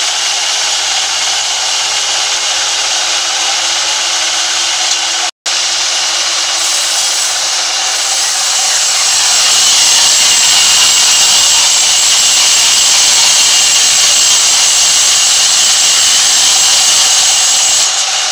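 Sawmill band saw running and sawing through a timber log: a steady high whine over dense sawing noise. It cuts out for an instant about five seconds in, and grows louder from about nine seconds in.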